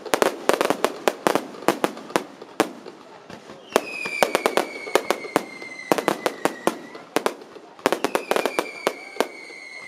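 Fireworks display: rapid, irregular bangs of bursting shells, with two long whistling fireworks that slowly fall in pitch, about four and eight seconds in, each lasting about three seconds.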